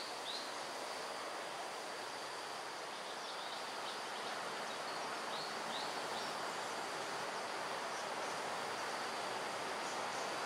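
Forest ambience: a steady hiss of insects with a thin, high held insect tone, and a few faint, short, high bird chirps scattered through.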